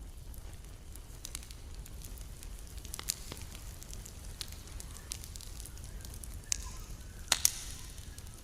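Campfire burning with scattered crackles and sharp pops of the wood, the loudest two close together about seven seconds in, over a steady low rumble.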